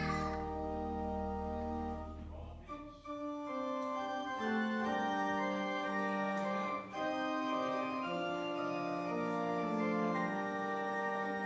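Church organ playing a postlude in slow, held chords. The deep pedal bass drops out about two and a half seconds in, and the sound breaks briefly between chords near three and seven seconds.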